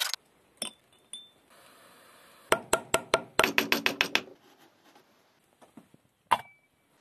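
A fast run of about ten sharp knocks as a wood chisel is struck into a block of wood. About two seconds later comes a single loud ringing clink of a lid on a ceramic dish, and two small metallic clinks come before the knocks.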